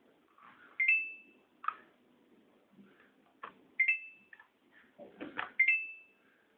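Electronic control-panel beeps of a Samsung VRT front-load washer: three short two-note rising chimes a couple of seconds apart, mixed with sharp clicks and knocks, as when its buttons are pressed.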